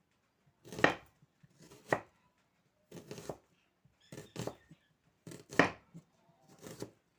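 Knife cutting onions on a chopping board: about six slow, separate crunching strokes, roughly one a second.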